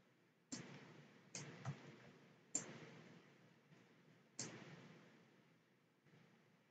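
A few faint, sharp computer mouse clicks, about five, spaced irregularly over near silence.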